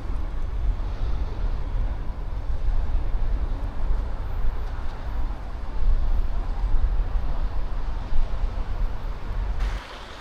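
Outdoor city noise: a low, fluctuating rumble of wind on the microphone over traffic noise. It drops off abruptly near the end.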